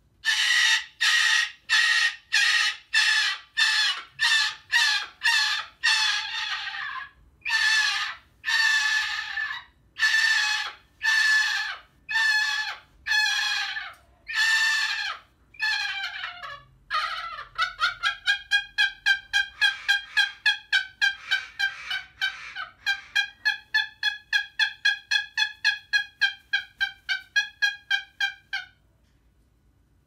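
Moluccan cockatoo calling loudly over and over: harsh screeching calls about two a second, then, from about halfway, a faster run of shorter, more tuneful calls about three a second, which stops shortly before the end.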